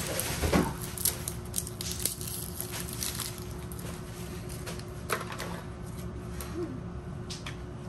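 Thin plastic crinkling and rustling in scattered bursts, with a few small clicks, as the plastic wrap and terminal cap are peeled off a 9-volt battery by hand.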